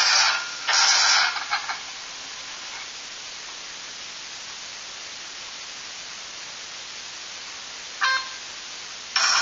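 Steady rushing hiss of the vertical wind tunnel's airflow, left bare when the music cuts out about two seconds in. A brief high tone sounds near the end, and the music comes back just before the end.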